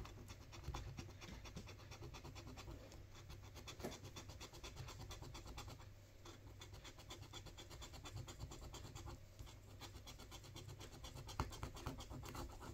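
Lottery scratch card being scratched off in quick, even strokes, rubbing away the coating over the play area.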